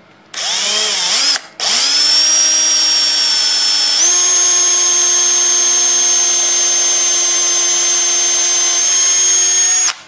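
Porter-Cable cordless drill boring a pilot hole into a wooden board. The motor whines up to speed, stops briefly after about a second, then starts again and runs steadily. Its pitch steps up about four seconds in, and it cuts off suddenly near the end.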